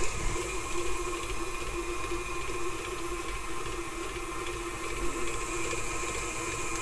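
KitchenAid stand mixer running steadily on its flat beater, creaming a block of softened cream cheese in a stainless steel bowl: an even motor whine that holds one pitch.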